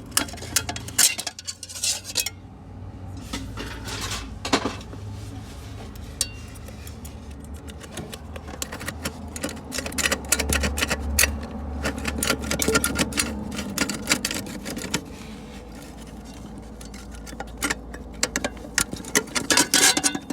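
Irregular light metal clinks and clicks as steel clutch parts of a ZF 8HP automatic transmission are handled and fitted, over a low steady hum.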